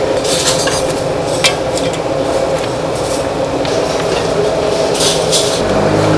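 Lamb bones clattering against a stainless steel pot as gloved hands lift them out and drop them into hot broth with small splashes, a handful of short knocks over a steady kitchen hum.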